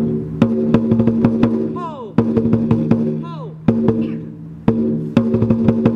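Music with percussion: a held chord under sharp, regularly spaced percussive hits and a few sweeping pitch glides, the strongest hits coming back about every two and a half seconds.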